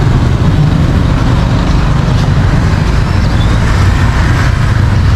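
Street traffic: a steady low rumble of passing cars and motorbikes.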